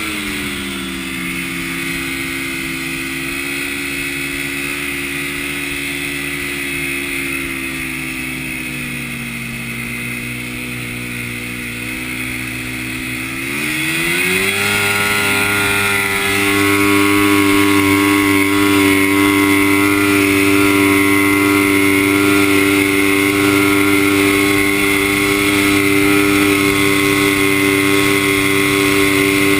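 Yamaha snowmobile engine heard from the machine itself. Its revs drop at the start and run steady and lower for a while. About fourteen seconds in, the revs climb as the throttle opens, then hold high and louder.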